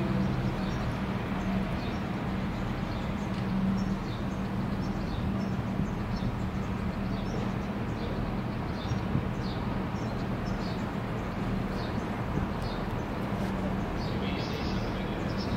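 Class 172 Turbostar diesel multiple unit drawing slowly towards the platform, its engines giving a steady low hum. Small birds chirp over it.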